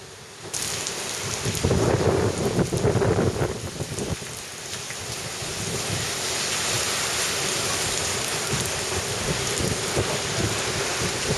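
Heavy typhoon rain pouring down in a steady hiss. It sets in abruptly about half a second in, with gusty rumbling for the first few seconds.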